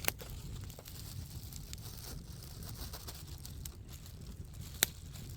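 Plastic food packaging crinkling and rustling as the shrimp skewers are unpacked, with two sharp clicks, one at the start and one near the end, over a low steady wind rumble on the microphone.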